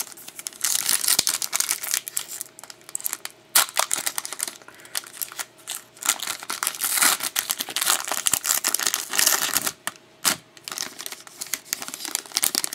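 Foil wrapper of a 2011-12 Elite hockey card pack being torn open and crinkled by hand, in uneven bursts of crinkling with sharp clicks.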